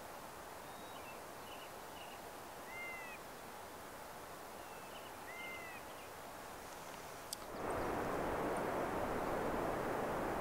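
A few short, high, arched animal calls, twice, each led by a couple of small chirps, over a quiet open-air background. About two-thirds of the way in a click is followed by a much louder, steady noise that lasts to the end.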